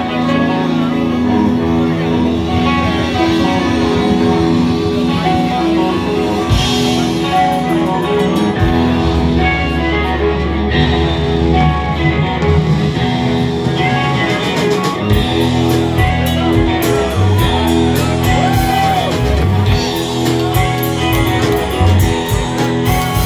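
Rock band playing live: electric guitars over bass and drums, loud and unbroken, heard through the club's PA from the audience.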